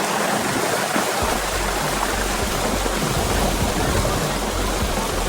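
Steady loud rushing noise of an off-road Willys Jeep on the move, with a low engine rumble that comes in about a second in.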